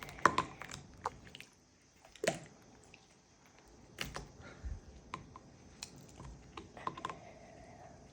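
Goo (slime) being handled and pressed, giving scattered short sticky squelches and clicks, the loudest just after the start and another about two seconds in.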